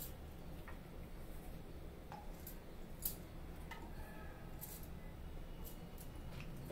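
A few faint, light clicks and taps of utensils and containers against a cooking pot, spread out over a low steady hum.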